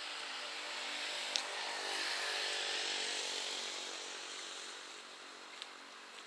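Diesel engines of approaching KiHa 47 railcars running in the distance, swelling to a peak and then easing off, which fits the driver throttling back. A single sharp click about a second and a half in.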